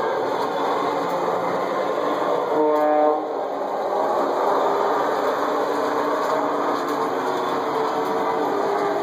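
A model train layout running, with the steady whirring rumble of the toy train and its accessories, and one short horn blast about three seconds in.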